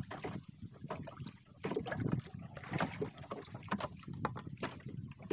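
Small waves lapping against the hull of a small boat in irregular splashes and knocks.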